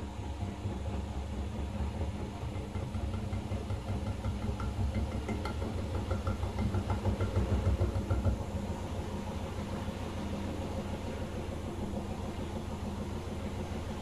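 Candy GrandO Plus front-loading washing machine spinning its heavily overloaded drum: a low, pulsing rumble that builds with light rattling ticks, then drops a little about eight seconds in and settles to a steady run.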